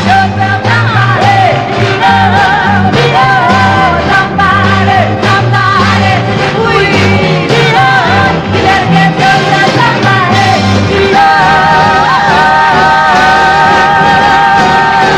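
Live pop-soul band with female group vocals over a moving bass line; about eleven seconds in, the voices settle into one long held note with vibrato.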